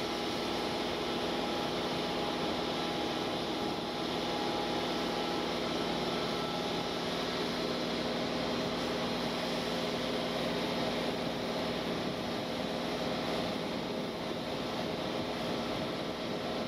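A multirotor drone's electric motors and propellers humming steadily, several steady pitches over a hiss, with some of the pitches shifting about halfway through.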